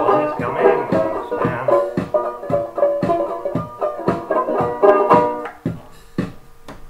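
Banjo strummed in a brisk, even rhythm, ending about five and a half seconds in on a final chord left ringing and fading.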